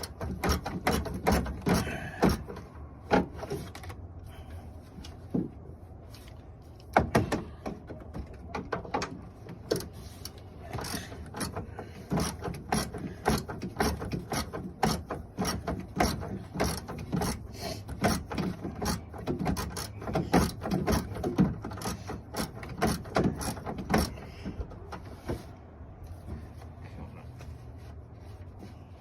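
Ratchet wrench clicking in quick runs while a 10 mm bolt is turned out, mixed with scattered knocks of tools and parts.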